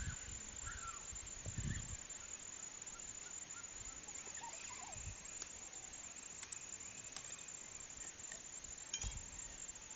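Quiet outdoor background with scattered faint bird calls, short chirps and small falling whistles. There is a brief low sound about a second and a half in, and a few soft clicks.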